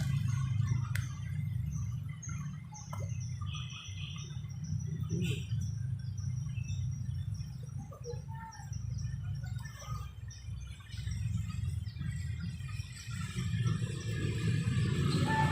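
A small bird chirping a long run of short high notes, about three a second, which stops about twelve seconds in, over a steady low rumble.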